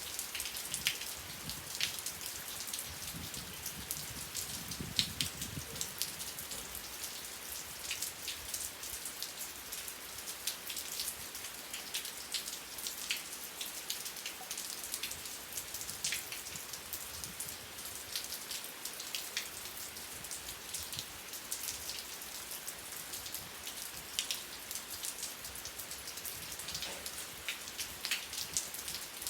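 Steady rain falling on a surface, a constant hiss with many individual drops ticking sharply through it, and a faint low rumble briefly about five seconds in.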